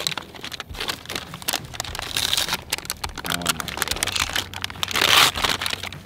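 Butcher paper crinkling and rustling as it is peeled open from around a wrapped rack of ribs, with the loudest crackle about five seconds in.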